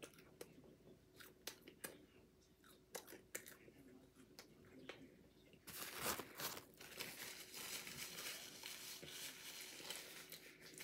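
Faint small ticks, then from about six seconds in a run of paper rustling and crinkling as paper fast-food packaging is handled.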